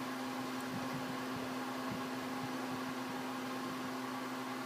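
A steady low hum with a faint hiss.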